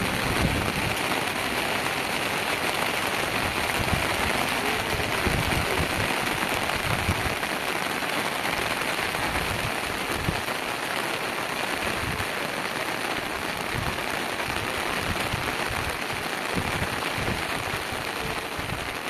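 Steady, heavy rain falling, with irregular low rumbles of wind gusting on the microphone.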